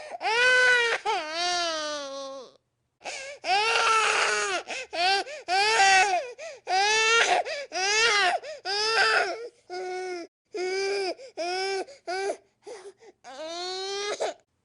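Infant crying: a string of high wails, each lasting about half a second to a second, with short breaths between them. There is a brief pause a few seconds in, and the last cry, near the end, rises in pitch.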